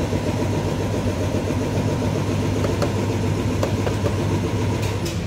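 Yamaha NMAX scooter's single-cylinder engine idling steadily, with a few light clicks from hands handling the plastic front body panel.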